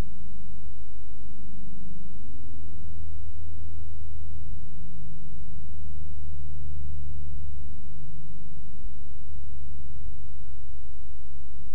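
A steady low rumble with a faint hum that wavers slowly in pitch.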